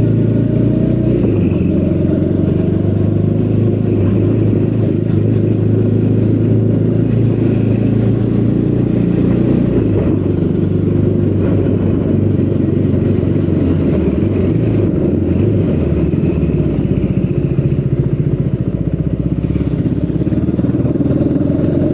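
Triumph Speed 400's single-cylinder engine running through its stock exhaust under way, holding fairly steady revs with only small rises and dips.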